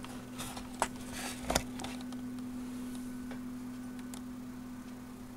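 A few clicks and light knocks as a small wiring connector is handled and plugged back onto the DVD circuit board inside an opened LCD TV/DVD combo. The loudest comes about a second and a half in, then only a steady low hum remains.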